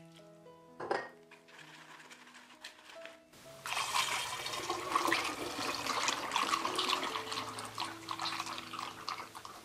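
Fruit juice poured through a funnel into a large glass jar, a loud splashing pour that starts about three and a half seconds in and eases off near the end. Background music plays throughout.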